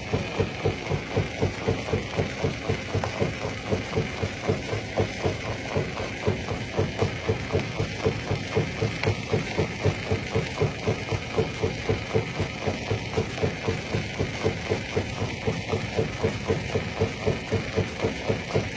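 Stone crusher machinery running with a steady, even pounding rhythm of about three beats a second.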